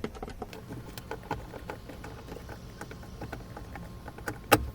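Phillips screwdriver working out a screw behind the door pull of a car door trim panel: a run of small, irregular clicks and scrapes, with one sharper knock near the end.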